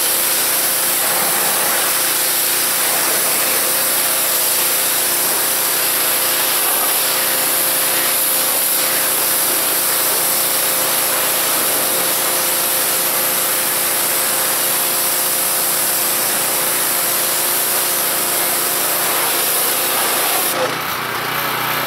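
Pressure washer running steadily, its water jet from a general-purpose nozzle spraying onto a car's wheel and body panels to rinse off foam: a steady hum under the hiss of the spray.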